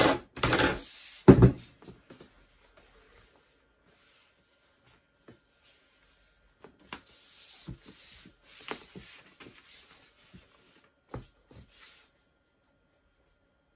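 Sheets of paper being handled and rustled on a tabletop, with a few light knocks and clicks. A loud rustle and a sharp knock come in the first second or so, then a quiet stretch, then more scattered rustling and clicks a few seconds later.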